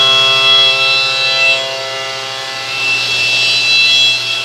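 Three-axis CNC mill roughing off stock: a steady whine of several held tones from the spinning cutter, over the hiss of coolant spraying against the enclosure's glass doors. The whine eases briefly in the middle, then picks back up.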